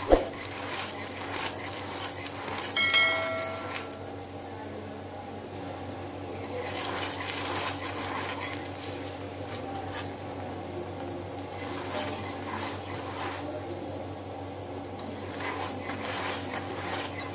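Aloo paratha sizzling in ghee on a tawa as it is pressed and turned with metal tongs. A sharp knock comes at the start and a brief ringing tone about three seconds in, and the sizzle swells around seven seconds and again near the end.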